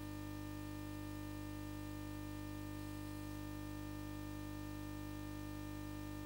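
Steady electrical hum made of several fixed tones over a faint hiss, unchanging throughout, with no other sound.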